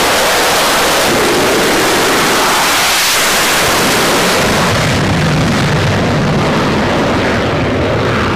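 Fighter jet's engine at full afterburner during a carrier catapult launch: a loud, steady rush of jet noise. About halfway through it turns to a deeper rumble, its high end fading as the aircraft climbs away.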